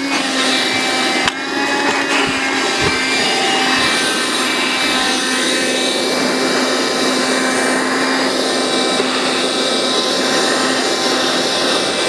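Cordless stick vacuum cleaner running steadily with a constant motor whine, with a couple of brief knocks about a second in.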